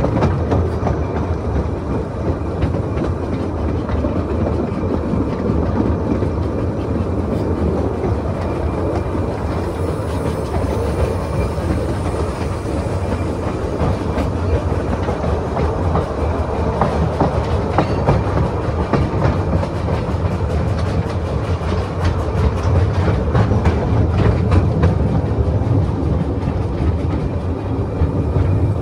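Narrow-gauge passenger carriage rolling along the track, heard from on board: a steady rumble of the wheels with frequent clicks as they run over rail joints and pointwork, the clicks coming thicker in the second half.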